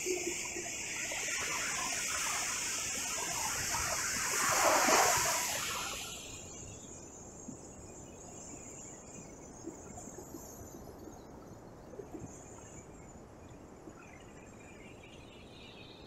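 Sea waves breaking and washing up the beach. The surf swells to its loudest about five seconds in, then drops to a faint, steady wash.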